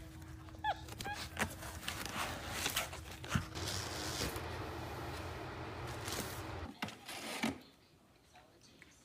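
Rustling and crinkling of cardboard box and plastic wrapping as an air purifier and its filter are unpacked by hand, with scattered clicks and knocks; the rustling stops about two-thirds of the way through, leaving a few light knocks as the filter is lifted out of its plastic housing.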